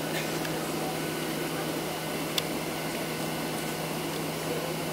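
Boeing 737-700 cabin noise while taxiing: a steady drone from the CFM56-7B engines at idle and the cabin air system, with a low steady hum. One sharp click about halfway through.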